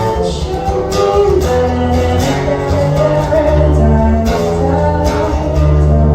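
Live performance of a song: a voice singing a melody over guitar, with steady bass notes and regular drum hits underneath.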